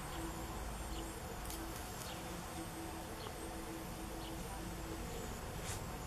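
Outdoor ambience with a steady low rumble, a faint buzzing tone that comes and goes in short stretches, and a few soft crackles from shashlik grilling over charcoal.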